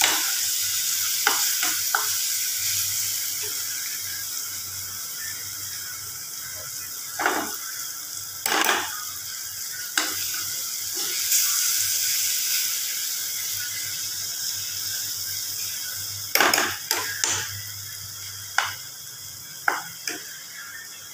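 Mashed eggplant sizzling in oil in a metal frying pan, slowly growing quieter, while a spoon stirs it and scrapes and knocks against the pan every few seconds.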